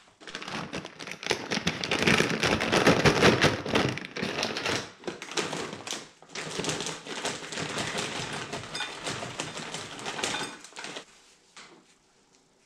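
Plastic food packets crinkling and rustling as they are handled and emptied into a bowl, a dense crackle loudest about two to four seconds in, dying away to near quiet near the end.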